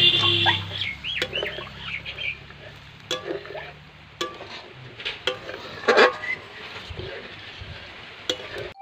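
A steel spatula clicks and scrapes against a metal karai as coconut-milk curry is stirred, with a sharp clink about six seconds in. A bird calls several times in quick succession in the background during the first second and a half.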